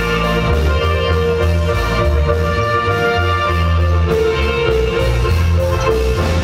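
Marimba band playing dance music, with melody notes over a heavy, steady bass line.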